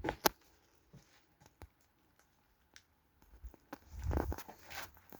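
Footsteps and handling noise: a few sharp clicks and knocks at first, then a stretch of heavier thuds and rustling near the end.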